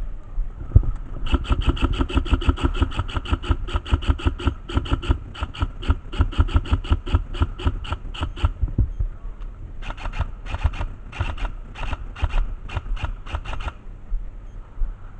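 Airsoft gun firing a long string of rapid shots, about five clicks a second, then a second, shorter string after a short pause.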